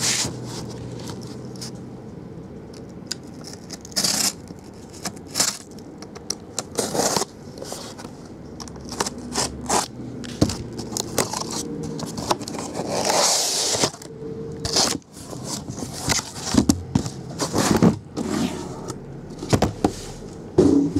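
A cardboard case and the trading-card hobby boxes inside it being handled on a tabletop. Cardboard scrapes against cardboard, with scattered knocks and taps as boxes are set down, and a longer scrape about thirteen seconds in.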